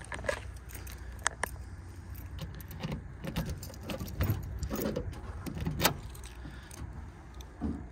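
A ring of original Ford keys jangling as a key is worked into the trunk lock of a 1957 Ford Fairlane, with scattered sharp clicks and a few dull knocks of the key, lock and trunk crest, over a steady low rumble.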